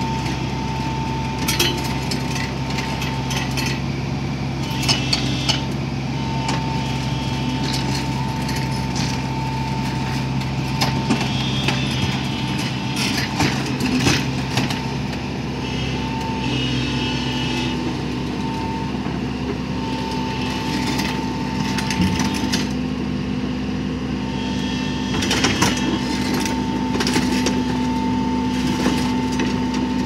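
Heavy diesel construction machine running steadily, with a whine that comes and goes and repeated metallic clanks and squeaks; the engine note rises a little over halfway through.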